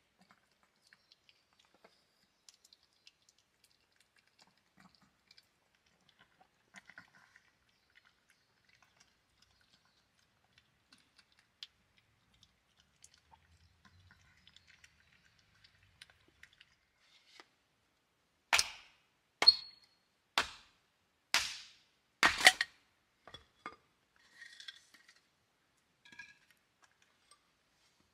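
A small dog crunching dry kibble, faint scattered clicks. About eighteen seconds in, five loud sharp knocks about a second apart, a hatchet splitting kindling on a wooden chopping round, then a few lighter taps.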